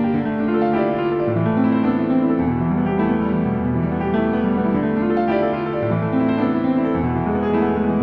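Slow, calm instrumental piano music with held chords and low notes changing every second or two.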